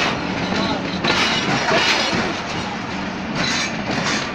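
Passenger coaches of a Pakistan Railways express train rolling slowly past on arrival, a steady rumble of wheels on rail.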